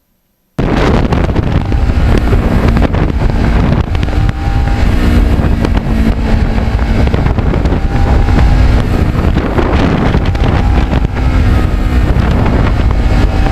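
Kawasaki Ninja 650R's parallel-twin engine running steadily under way, with heavy wind buffeting the microphone. It cuts in abruptly about half a second in.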